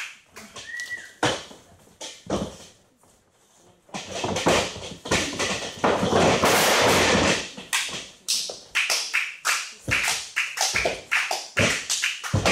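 Sharp slaps and thuds of wrestlers striking and hitting the ring, with a loud noisy stretch a few seconds in, then a quick even run of sharp taps, about three a second, near the end.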